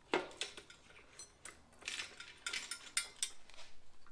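Hand tools and small metal parts clinking and clicking as the ignition key lock is worked loose with an Allen wrench. It is an irregular run of sharp metallic clicks, loudest just after the start and around three seconds in.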